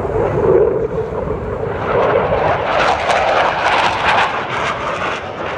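Jet noise from Blue Angels F/A-18 Super Hornets flying past, building about two seconds in to a loud, crackling rush that eases off near the end.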